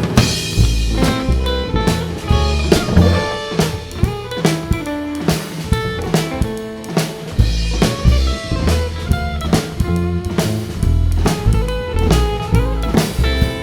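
Live band playing an instrumental break between verses, with guitar over a drum kit keeping a steady beat.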